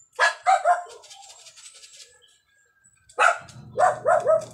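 A dog barking in two quick bouts: three sharp barks at the start, then four more about three seconds in.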